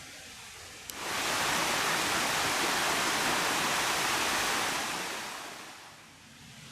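Forest ambience: a steady rushing hiss that starts abruptly about a second in and fades away over the last couple of seconds.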